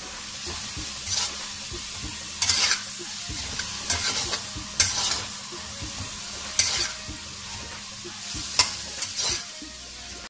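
Boneless chicken and chopped onion sizzling in hot ghee in a steel karahi while a metal spatula stirs them, scraping and clinking against the pan every second or two.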